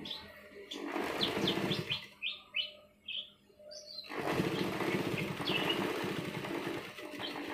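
Sewing machine stitching in two runs, a short one of about a second and a longer one of about three seconds, with a quiet gap between. Small birds chirp throughout in short, falling calls.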